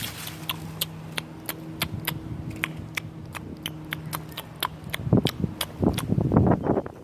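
Sharp ticks and crackles of dry leaves and grit on pavement, a few a second, as they are moved through. A faint steady low hum sits under the first few seconds, and louder rustling comes in near the end.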